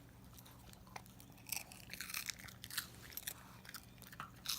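A dog crunching and chewing pieces of a crisp rice cake with peanut butter: faint, irregular crunches several times a second.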